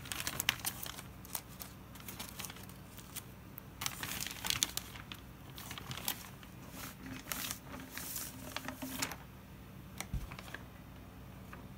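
Clear plastic bag crinkling and rustling in irregular bursts as it is handled and pulled off new stainless steel exhaust pipes, dying down about nine seconds in.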